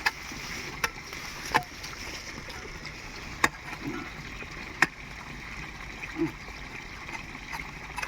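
Water sloshing and splashing in a shallow pond, with a few sharp clicks or knocks scattered through it.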